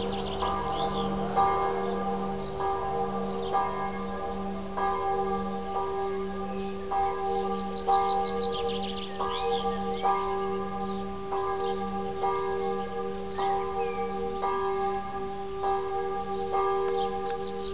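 Church bells ringing their evening chimes: a steady series of strokes, about one a second, each ringing on and overlapping the next.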